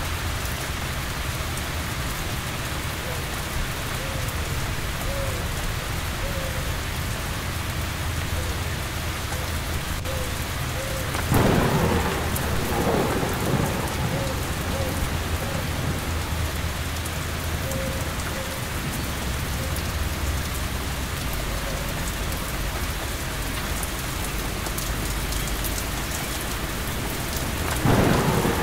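Steady heavy rain falling in a thunderstorm, with a low continuous rumble underneath. Two louder peals of thunder break in, one about midway through and one near the end, each trailing off over a couple of seconds.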